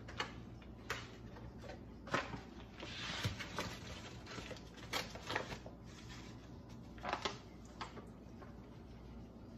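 Quiet kitchen handling sounds: a paper flour bag rustling, with a few light knocks and clicks of bowls and containers set down and moved on the counter. The rustling is most noticeable around three seconds in.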